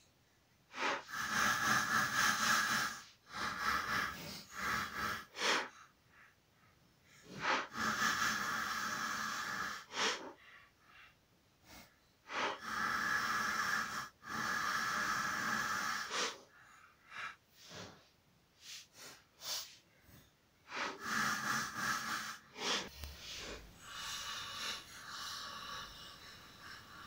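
Hand filing and polishing on the nose of a silver-steel cam lobe: a small file rasping over the hardened steel in long strokes of a second or more with short pauses, and a run of quick short strokes between them. The strokes turn softer and more even near the end.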